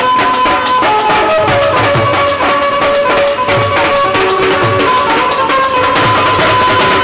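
Music: a melody of held notes over a steady drum beat.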